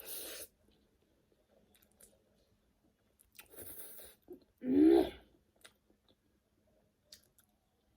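Close-up eating sounds of noodles: short slurps near the start and about three and a half seconds in, with chewing between. About five seconds in comes the loudest sound, a short voiced sound from the eater that bends up and down in pitch.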